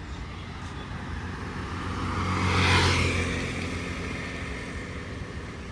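A motor vehicle driving past close by, its engine hum and tyre noise building to a peak just under three seconds in, then fading away.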